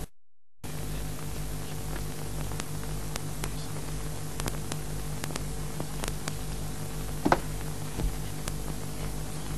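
Steady hum and hiss of an old film soundtrack, with scattered faint clicks and a slightly louder short tap about seven seconds in. The sound drops out briefly at the very start.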